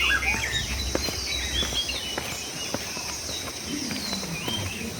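Rainforest ambience: several birds calling in short whistled notes that glide up and down, over a steady high drone of insects.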